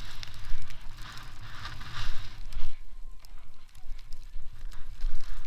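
Snow hissing in swells as the rider turns through deep powder, over a steady low rumble of wind buffeting the head-mounted microphone.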